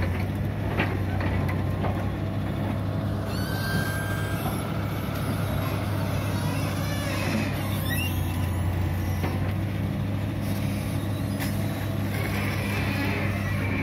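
Hitachi UH083 long-arm excavator's diesel engine running steadily with a deep hum, with a few sharp knocks from the working machine.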